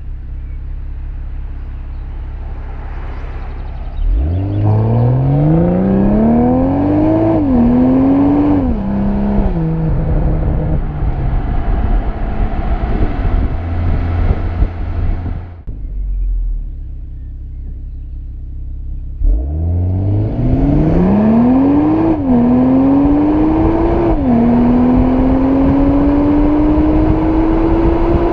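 Exhaust of a BMW M340i's 3.0-litre turbocharged inline-six, stock and in SPORT+ mode, heard close at the tailpipe while driving. It rumbles low, then pulls away twice, each time climbing in pitch through two quick upshifts. After the first pull it settles to a steady cruise. The second pull ends in a slow, steady rise.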